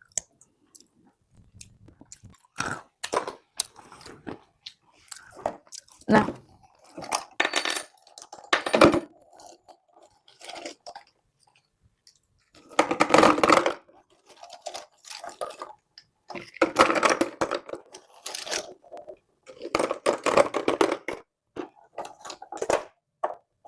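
In-shell macadamia nuts being poured into and out of a container, clattering against it and each other in several bursts of a second or two.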